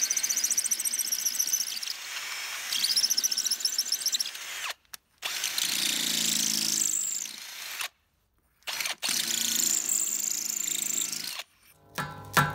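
Power drill with a wood bit boring into soft brick, in three runs with a steady high motor whine, each cut off abruptly. Strummed acoustic guitar music starts near the end.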